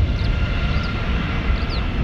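Jet airliner engines running, a steady high whine over a low rumble.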